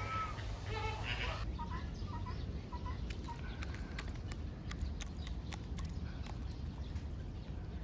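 Birds calling: a few longer calls in the first second and a half, then four short calls about half a second apart. After that come scattered sharp clicks.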